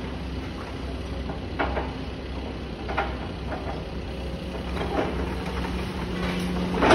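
Demolition excavator's diesel engine running with a steady low rumble while masonry and debris from the house crash down in several separate knocks, the loudest near the end. A steady hum from the machine joins about two thirds of the way in.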